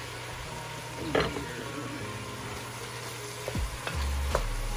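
Diced carrots and celery sizzling as they sauté in an enamelled cast-iron Dutch oven. There is a short clatter about a second in and a few sharp knocks near the end.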